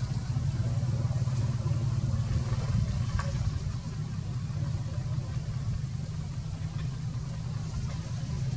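An engine running steadily at idle: a low, even hum throughout.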